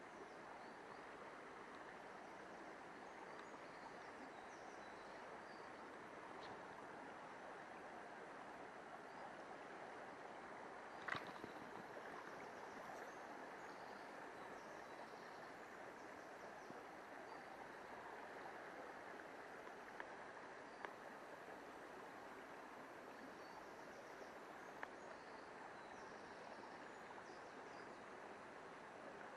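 Faint, steady rush of a shallow river running over stones. A sharp click comes about eleven seconds in, with a few fainter ticks later.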